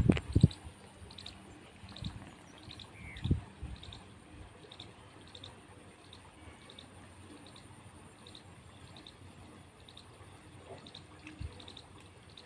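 Quiet waterside ambience with a high chirp repeating steadily a little under twice a second, and a short rising call about three seconds in. A few dull knocks sound at the start and once about three seconds in.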